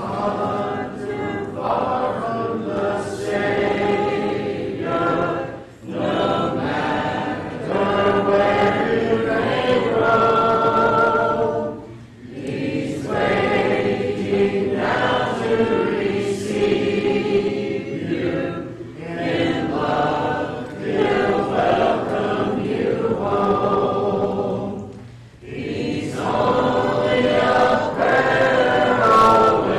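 Congregation singing a hymn together a cappella, many voices unaccompanied, in sung phrases with short breaks about every six seconds.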